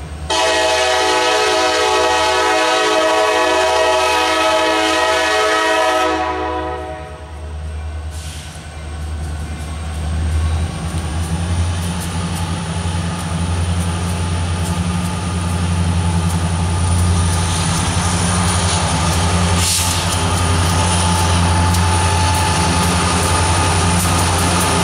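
A CSX freight train's lead diesel locomotive sounds its horn in one long chord lasting about six seconds, then the diesel locomotives rumble louder as they approach, growing heavier from about ten seconds in, with the wheels clicking rapidly over the rail joints as the train passes.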